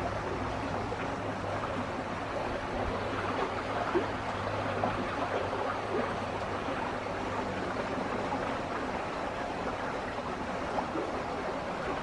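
Steady rush of flowing water, even and unbroken, with one brief tick about four seconds in.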